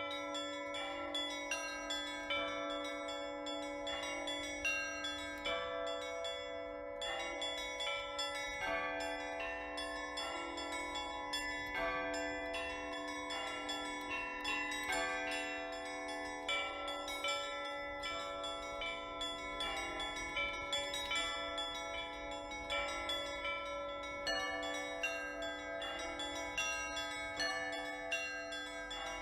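Russian Orthodox church bells rung in a trezvon: quick, rhythmic strikes on the smaller, higher bells ring out over a steady lower bell tone, the bells sounding together without a break.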